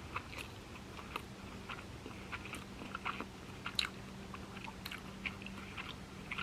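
Close-miked chewing of a mouthful of sushi: soft, irregular wet mouth clicks and smacks.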